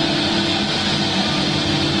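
CNC wood router running steadily: the spindle's constant whine over a continuous rushing noise.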